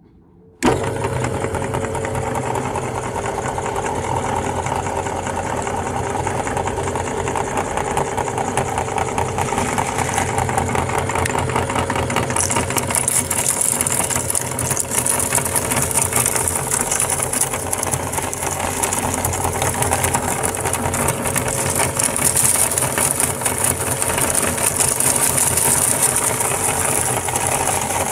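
Belt-driven cast-aluminium meat grinder switching on about half a second in and running steadily. From about halfway through comes a dense, crisp crunching as dry, colourful papadum pellets are fed into the hopper and crushed through the plate.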